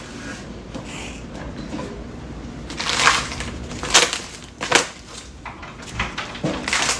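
Packaging rustling and crinkling as a toaster oven tray is unwrapped, with louder sharp crackles about three, four and nearly five seconds in.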